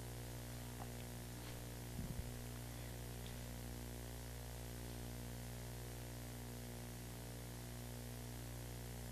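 Steady electrical mains hum with a stack of overtones and a hiss over it, from the microphone and sound system with no one speaking. A faint brief sound about two seconds in.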